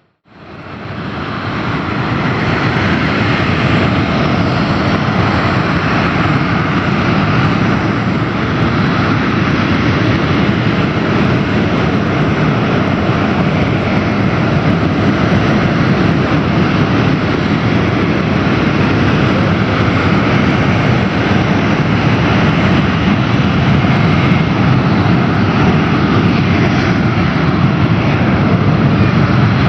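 Jet noise from Dassault-Dornier Alpha Jets' Larzac turbofan engines, a steady dense roar that fades in over the first couple of seconds and then holds level without distinct rises or falls.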